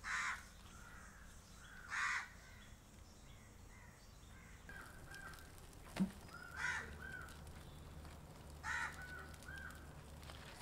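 Harsh bird calls, about four, spaced a couple of seconds apart, with a single sharp snap about six seconds in.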